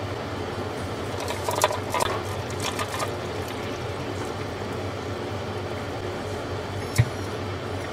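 7-Eleven Seven Cafe coffee machine running with a steady low hum while a thin stream of hot coffee pours into a paper cup. A few clicks come about one and a half to three seconds in, and one sharp click near the end.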